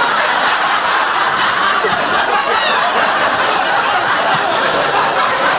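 Studio audience laughing steadily, many voices together, with no letup.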